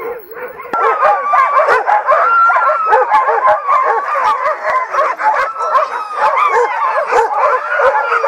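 A team of harnessed sled dogs barking and yelping together in a dense, continuous chorus, the clamour of a team eager to run, starting up sharply just under a second in.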